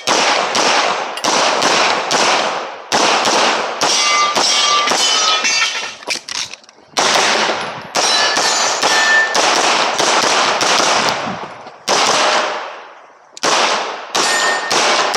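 Pistol fired in quick strings of shots, each with a short echoing tail, pausing twice for a second or so between strings. A few shots are followed by a brief ringing ping, typical of steel targets being hit.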